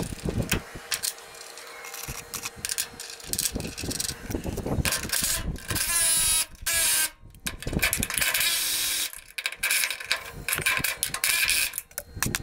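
Cordless DeWalt drill running in several short bursts, driving fasteners to mount a rear-axle shock bracket to a steel frame. Before the drill starts, metal parts clink as they are handled.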